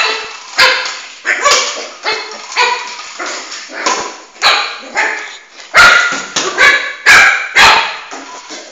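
A Shih Tzu puppy barking excitedly while playing with its ball: a rapid series of short, high-pitched barks, about two a second.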